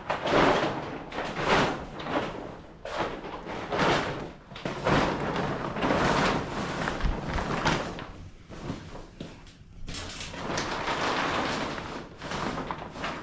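A large black plastic tarp rustling and crinkling as it is pulled and dragged over a framework, in repeated swells of noise.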